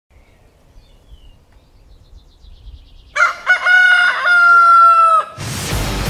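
A rooster crows once, starting about three seconds in: a few short rising notes, then one long held note that falls slightly before cutting off. Music starts just after it, near the end.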